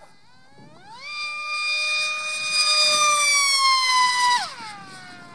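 High-pitched whine of an RC jet model's HET Typhoon 650-68 2000kV electric motor on a 6S LiPo at high power in flight. It rises in pitch and grows louder about a second in, holds, then drops sharply in pitch and level about four seconds in and goes on lower and fainter.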